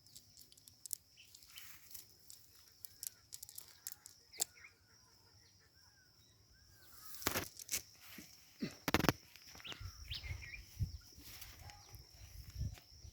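Small birds chirping softly over a steady high-pitched drone. A few brief sharp rustles and knocks come about seven to nine seconds in, followed by low rumbling noise.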